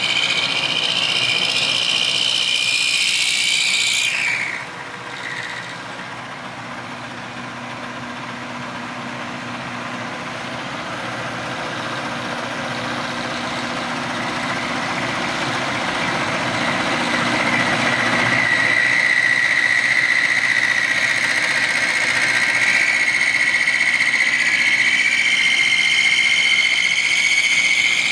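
Milling machine cutting a rotary-engine rotor housing: a steady machining whine from the spindle and cutter. The high whine drops out sharply about four seconds in, the noise slowly builds back, and a steady high whine returns about two-thirds of the way through.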